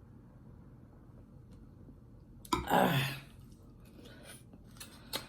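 A sudden loud burst of breath and voice from the eater, falling steeply in pitch, about two and a half seconds in. It is followed by a few soft mouth clicks from chewing.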